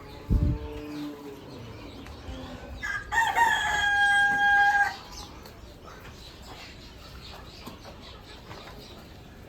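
A rooster crowing once, about three seconds in: a few short rising notes, then one long held note of about two seconds. Just after the start there is a sudden thump and a brief, lower call.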